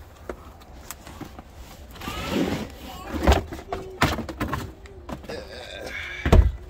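Cardboard amplifier box being handled and shifted on a car trunk's carpeted floor: rustling and scraping with several dull thumps, the loudest near the end.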